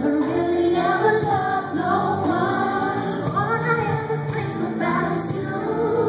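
Live R&B music: a female lead vocal sings gliding, ornamented runs over a full band.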